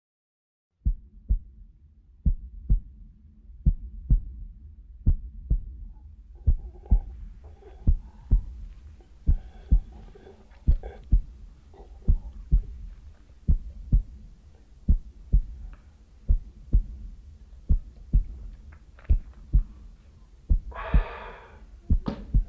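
Slow heartbeat sound effect: paired low thumps repeating about every second and a half, starting suddenly out of silence. Faint muffled higher sounds come in the middle, and a brief louder muffled burst comes near the end.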